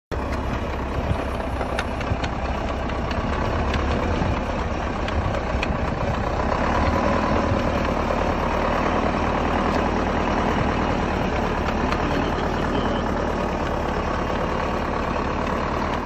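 DT-75 crawler tractor's diesel engine running steadily.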